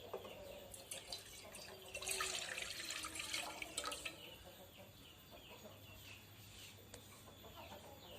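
A spoon stirring liquid in a pan on the stove, with faint scraping clinks and sloshing that are busiest about two to four seconds in.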